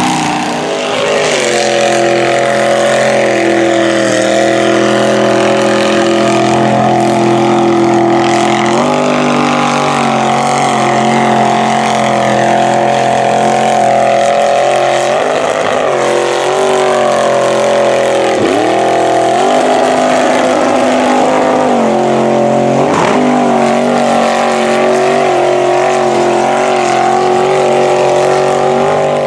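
Mud trucks' engines running hard at high revs while plowing through a mud pit, the pitch dipping sharply and climbing back several times.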